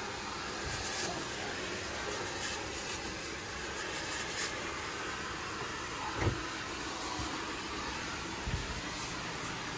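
Steady rushing hiss of a carpet-cleaning hot water extraction unit's vacuum drawing through its hose. Two dull thumps come in, one about six seconds in and a softer one near the end.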